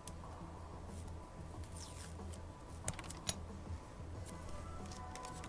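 Faint handling of a small sheet of acetate and masking tape: a brief swish about two seconds in and two light clicks a moment later, over a low steady hum.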